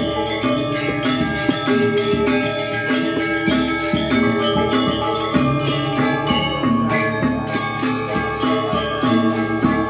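Balinese gamelan playing the accompaniment for a Rejang dance: bronze metallophones and gongs ringing in a steady, repeating pattern, with a short low note struck about twice a second.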